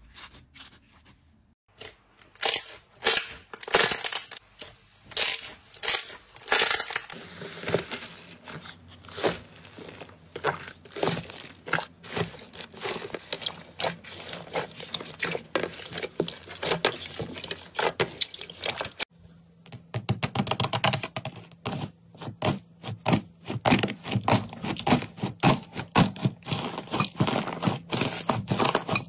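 Slime being squeezed and pressed by hand, giving a dense run of crackling, popping and crinkling sounds. The sound changes abruptly about two-thirds of the way through, as it moves on to another slime.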